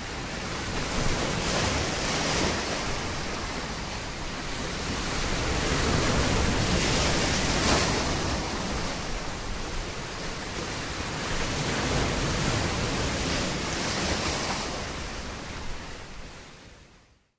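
Ocean surf: a steady wash of waves that swells and eases every few seconds, fading out at the end.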